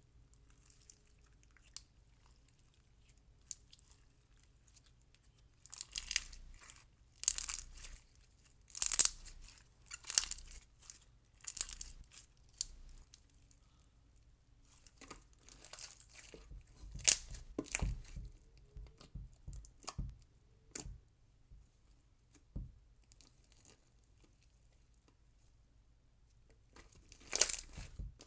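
Clear slushy slime with beads being squeezed and worked by hand, making short crackly, crunchy bursts of sound with quiet gaps between them; quiet for the first few seconds.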